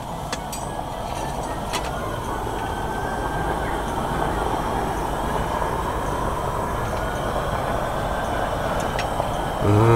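Gas lantern burning with a steady hiss, a little louder after the first few seconds; the burner is a Uniflame UL-X running on a cassette-gas canister.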